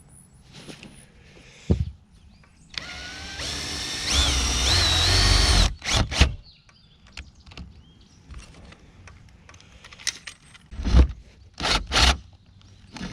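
Cordless drill running for about three seconds, its motor rising in pitch as it speeds up, then stopping. A couple of sharp clicks follow, and near the end several loud knocks.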